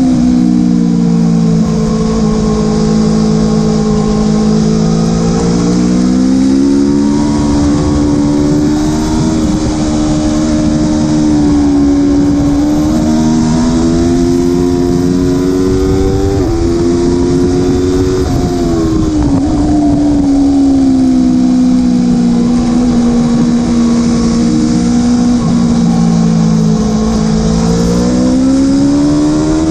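Aprilia Tuono motorcycle engine under hard riding, its pitch climbing, holding and dropping several times as it accelerates, shifts and slows, over a steady rush of wind noise.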